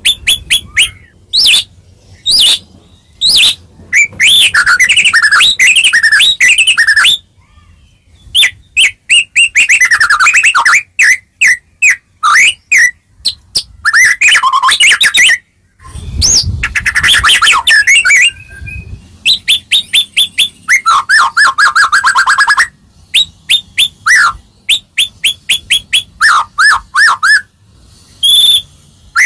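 White-rumped shama singing loudly: runs of quick, sharp repeated notes alternating with fast, varied warbled phrases, broken by brief pauses.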